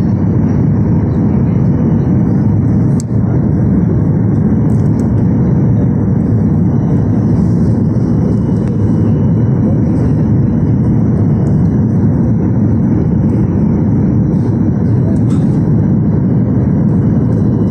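Steady roar of engine and rushing air inside a jet airliner's cabin, heard at a window seat over the wing during the approach, with the flaps extended.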